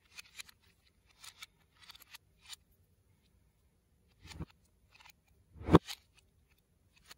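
LEGO bricks and plates clicking and rattling as they are handled and pressed together, with one louder snap late on as a piece is pushed into place.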